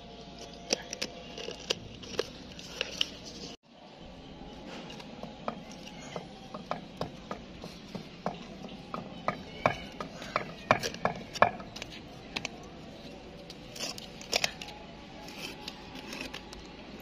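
A knife blade scraping and prying at a hard baked dough crust that seals the rim of a hot steel tumbler: irregular clicks and scrapes of steel on steel and on crust, busiest a little past the middle.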